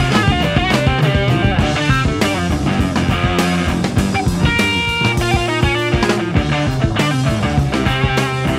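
Instrumental passage of a 1970s rock band recording: electric guitar lines over bass and drum kit, with no singing.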